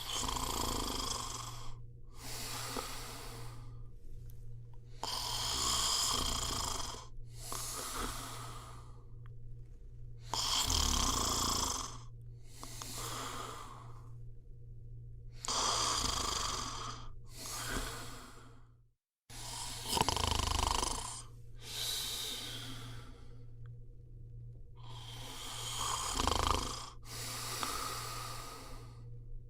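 A person snoring in slow, regular breaths, each breath in and each breath out a rasping noise, about one full breath every five seconds. A steady low hum runs underneath, and the sound drops out completely for a moment a little past the middle.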